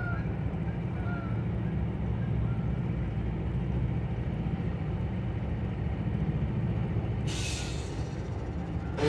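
Diesel freight locomotives rumbling steadily as the train crosses a steel truss bridge, with a brief hiss about seven seconds in.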